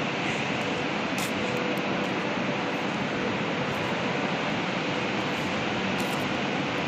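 Steady rushing machinery noise with a faint steady hum running through it, of equipment running in an electric locomotive shed.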